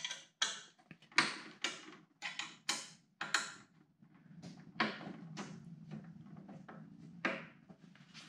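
Short clicks and knocks from a benchtop planer's metal outfeed table being shifted and adjusted by hand: about ten in quick succession over the first three and a half seconds, then a few more, spaced out.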